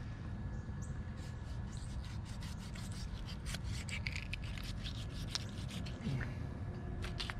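Small knife slicing and scraping as alligator hide is cut away from the leg: a quick run of short scrapes and clicks, thinning out near the end.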